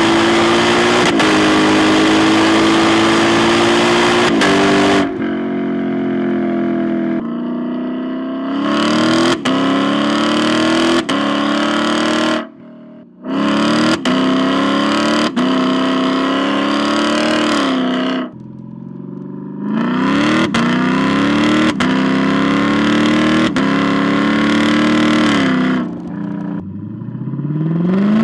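Lexus LC 500's 5.0-litre 2UR-GSE V8 through an aftermarket mid-pipe exhaust, revving hard. Its pitch climbs and drops sharply again and again, with a short break about halfway through.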